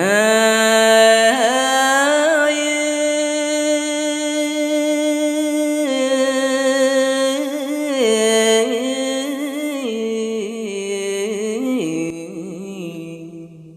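Khmer smot chanting by a Buddhist monk: a single voice sings one long, ornamented phrase. It holds a steady high note for about six seconds, then winds down through wavering lower notes and fades near the end.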